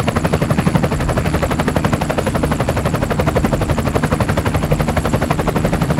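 Helicopter rotor sound for a toy helicopter being flown by hand: a rapid, steady chopping of many beats a second.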